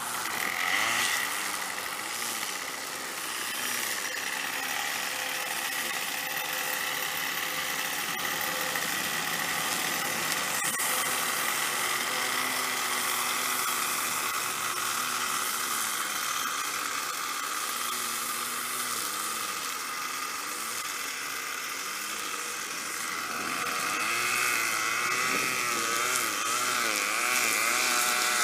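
String trimmers running continuously while cutting tall grass, their whine wavering up and down in pitch.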